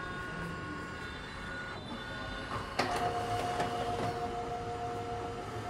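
Canon imageRUNNER iR2425 photocopier running an A4 copy job just after Start is pressed: its motors whir with a steady hum and thin whining tones. About three seconds in a click sounds and a new, lower whine starts.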